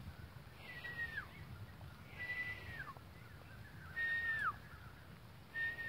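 A bird calling over and over, four times: each call a held clear note that drops steeply in pitch at its end, about one every second and a half.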